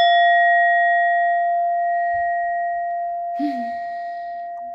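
Singing bowl struck once with its mallet, ringing with one clear steady tone and higher overtones; the overtones fade within a second or two while the main tone dies away slowly.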